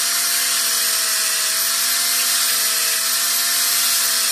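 DeWalt angle grinder running at steady speed, its abrasive disc grinding a ballpoint pen piece held against its edge. A steady whine with a dense hiss above it.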